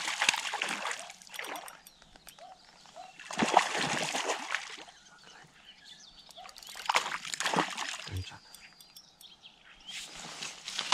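Hooked trout splashing and thrashing at the water's surface on the end of the line, in four separate bursts a few seconds apart.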